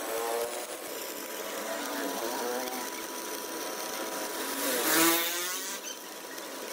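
Stick-welding arc crackling and sizzling as the electrode lays a weld bead on a compressor's steel shell. It swells louder about five seconds in.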